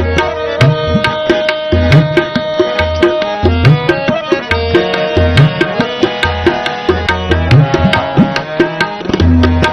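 Instrumental interlude of a Sikh devotional hymn (shabad kirtan): tabla keeps a steady rhythm, some low strokes bending upward in pitch, over held melody notes and a steady bass line.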